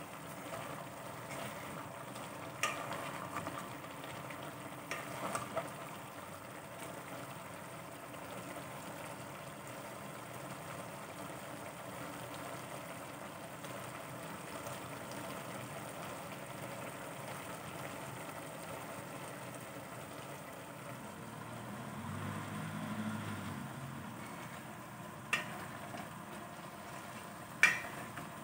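Papaya and chicken in coconut milk sizzling steadily in an aluminium pot, with a few sharp knocks of a spatula against the pot: a couple early on and two near the end as it is stirred.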